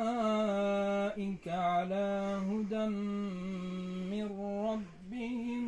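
A single unaccompanied voice chanting in long held notes with wavering ornaments, typical of Islamic religious recitation. It pauses briefly for breath a few times.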